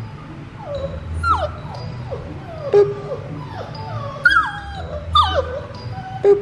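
Labrador puppy whimpering: a string of short, high whines, each sliding down in pitch, about seven in all.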